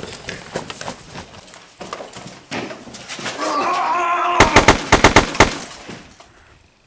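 A close-quarters struggle: scuffling and knocks, then a man's strangled, wavering cry about three seconds in, cut off by a rapid run of about eight sharp cracks, like a short burst of gunfire.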